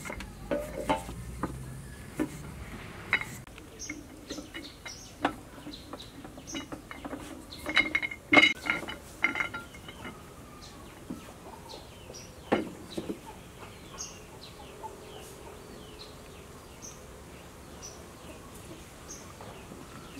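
Wooden rolling pin knocking and rolling against the tabletop as dumpling dough is rolled thin, with a burst of louder clatter about eight seconds in. Birds chirp in short falling calls about once a second in the background.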